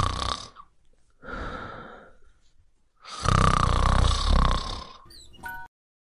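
Snoring: a snore trailing off at the start, a softer one about a second in, then a long loud rattling one about three seconds in. Brief high chirps follow near the end before the sound cuts off.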